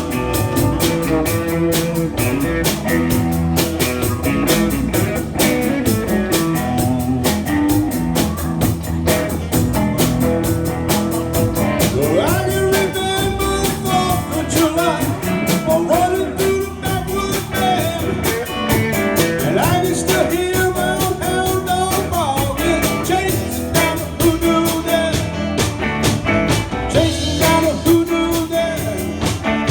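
Live band playing a blues-rock number at a sound check: guitar and drums on a steady beat, with singing.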